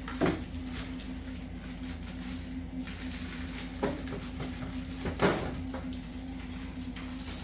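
Frozen chicken bones and vegetable scraps being tipped out of a plastic freezer bag into a roasting pan: a few short knocks as the frozen pieces land, the loudest a little after five seconds in, over a steady low hum.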